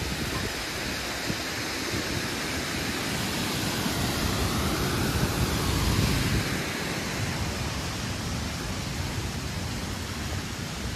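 Waterfall rushing: a steady wash of falling water that swells a little around the middle.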